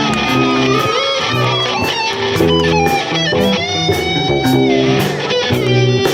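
Rock band playing an instrumental section: electric guitar playing bent, gliding notes over a bass line and drums keeping a steady beat on the cymbals.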